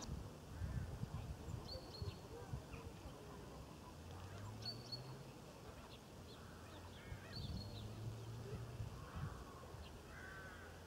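Faint outdoor ambience of birds calling: a short high call repeated every two to three seconds, with a few lower calls and a low hum that comes and goes.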